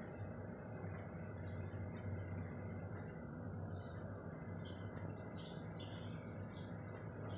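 Small birds chirping in short, scattered calls over a steady low rushing background noise with a faint hum.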